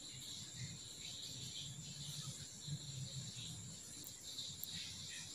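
Faint background: a steady high-pitched buzzing, with a low uneven rumble underneath.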